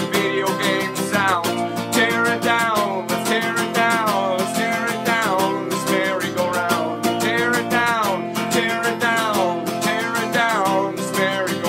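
A man singing with steady strummed acoustic guitar accompaniment.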